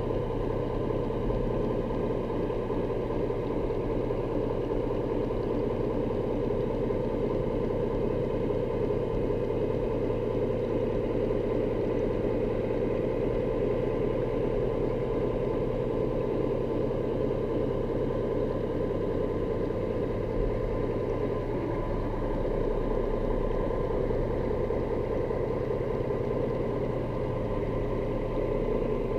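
Steady engine drone heard underwater, with several constant tones and no change in speed.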